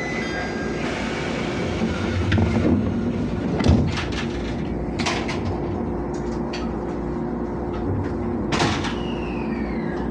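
E127-series electric train's sliding doors closing with a thud, followed by a few clicks and knocks over the train's steady hum. Near the end a falling whine begins as the train starts to pull away.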